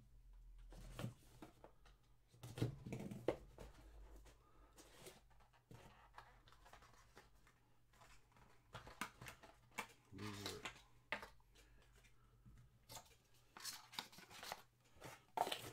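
Hands handling a cardboard trading-card box and a clear plastic card case: scattered rustles, scrapes and light clicks, quiet overall.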